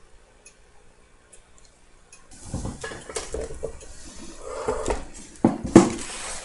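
Irregular clattering and clinking of hard objects, starting about two seconds in, with a couple of louder knocks near the end. A few faint clicks come before it.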